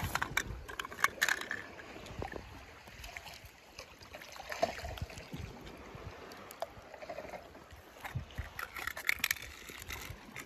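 Water sloshing and gurgling, with scattered light clicks and knocks from toy cars being handled in the water.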